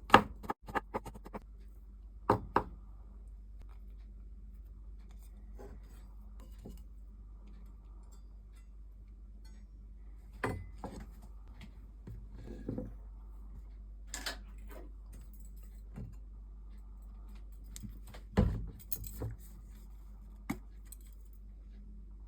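Kitchen prep sounds: a few knife knocks on a cutting board at the start, then scattered light knocks and clinks of utensils and dishes being handled, over a faint low hum.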